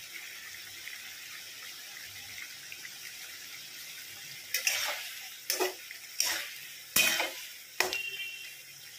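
Yogurt gravy with fried pointed gourds simmering in a metal kadai, a steady bubbling hiss. From about halfway a spatula stirs the curry, scraping the pan in five sharp strokes.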